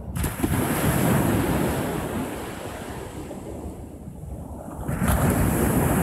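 Small sea waves breaking on a sandy beach: a rush of surf just after the start that washes out and fades, then a second wave breaking about five seconds in.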